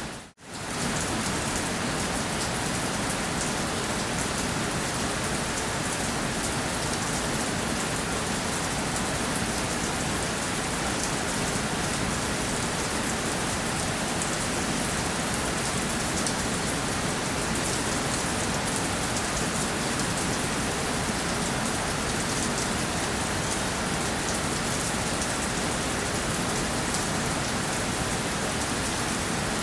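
Steady rain falling, an even hiss with a fine patter of drops. The sound cuts out for a split second just after the start, then resumes at the same level.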